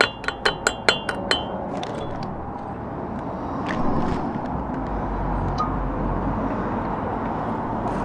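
Pliers clinking on the steel split pin and propeller nut of a British Seagull outboard as one leg of the pin is bent over: about half a dozen sharp metallic clicks in the first second and a half, then a few faint ticks over a steady background noise.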